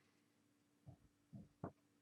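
Near silence with a faint steady hum, broken by three soft, faint knocks of items being handled in the second half.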